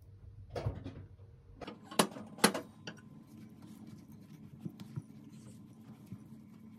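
Spatula stirring a moist bulgur mixture in a glass bowl: soft, steady scraping with small ticks. Two sharp knocks come about two seconds in, half a second apart.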